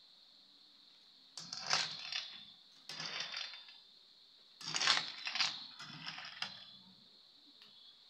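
Metal spatula stirring and scraping moringa leaves around a metal wok: three bouts of clattering and rustling, the last and longest about two seconds.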